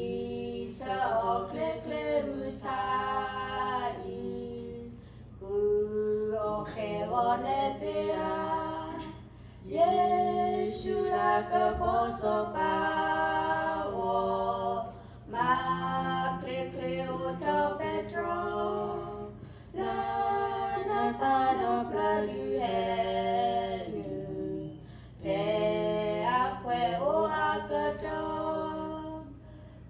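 Two women singing a hymn together in Karen, unaccompanied, into a hand-held microphone, in phrases of a few seconds with short breaks between them.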